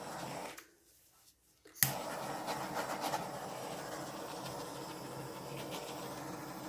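Handheld butane torch running with a steady hiss while it is passed over wet acrylic paint; the torch is nearly out of butane. Early on the sound drops away briefly and comes back with a sharp click, after which the steady hiss runs on.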